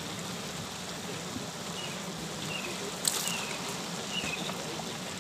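Beef and masala sizzling in a large steaming aluminium degh, a steady hiss. A bird chirps a few short falling notes, and there is one sharp clack about three seconds in.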